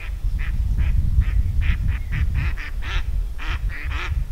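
A duck quacking over and over, in short calls about three a second that come thicker in the second half, over wind rumbling on the microphone.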